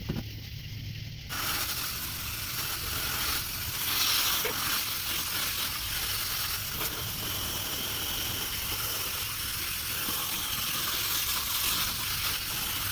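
Steady hiss of water spraying from a hose onto a heat pump coil during cleaning. It starts suddenly about a second in, over a low hum.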